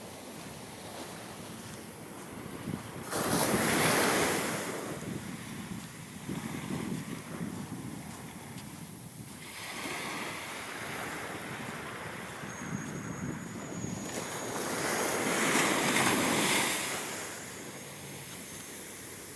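Ocean waves breaking on the shore, with two loud crashes, about three seconds in and again about fifteen seconds in, and a steady wash of surf between them. Wind blows on the microphone.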